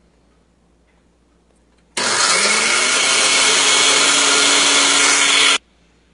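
Oster countertop blender with a glass jar, blending Oreo cookie crumbs. It switches on about two seconds in with a short rising whine as the motor spins up, runs steadily for about three and a half seconds, then cuts off suddenly.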